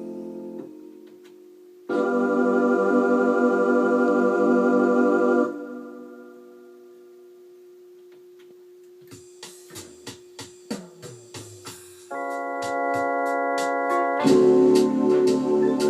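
Kawai XR9000 electronic organ playing sustained chords, with a single faint held note between them. About 9 seconds in, a series of short percussion ticks from its built-in rhythm section plays, and near the end a fuller chord enters over the rhythm.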